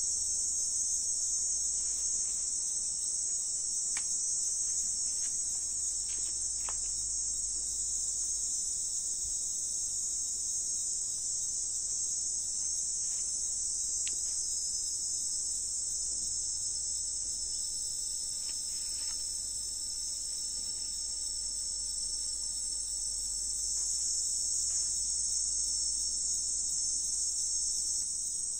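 A steady, dense chorus of insects: an unbroken high-pitched shrill that neither pulses nor changes.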